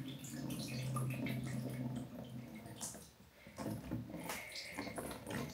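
Water pouring in a stream into a clear plastic storage box and splashing onto the shallow water at its bottom. The pour stops about two and a half seconds in, followed by a few scattered drips.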